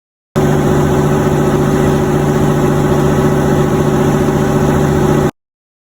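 Dive boat's engine running steadily with a constant low hum; it cuts in and cuts off abruptly.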